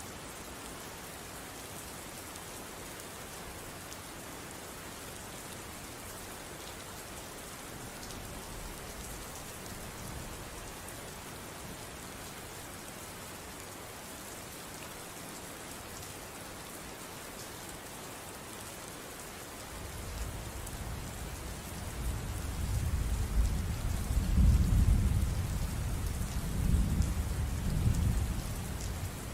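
Steady rain falling. A faint low rumble comes around a third of the way in, then a long, loud rolling rumble of thunder builds from about two-thirds through and is loudest near the end.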